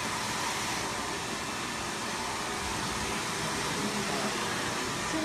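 Steady, even hiss of background room noise.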